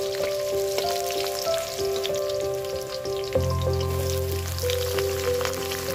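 Vegetables frying in hot oil in an iron wok: a steady crackling sizzle with many small pops. Under it plays background music in held notes, and a deep bass comes in a little past halfway.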